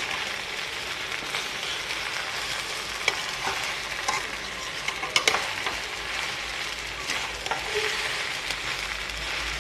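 Cauliflower Manchurian sizzling in a stainless-steel kadai while a metal spatula stirs and scrapes through it, with scattered clicks of the spatula against the pan and a few sharper ones about five seconds in.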